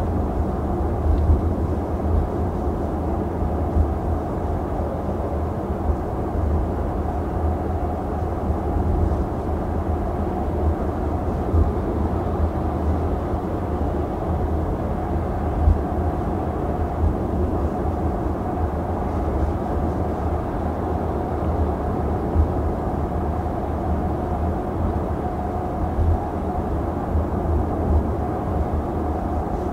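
Steady low rumble of tyres and road noise heard inside the cabin of a Mercedes-Benz EQC electric SUV driving on the road.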